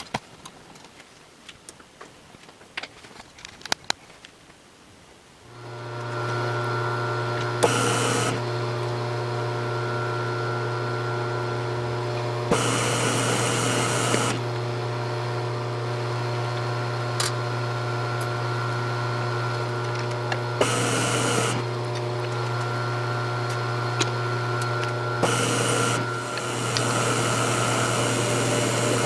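A few light clicks and taps, then a milling machine starts about five seconds in and runs with a steady hum. Four times it is overlaid by a short stretch of louder, hissing noise, likely the cutter in the work.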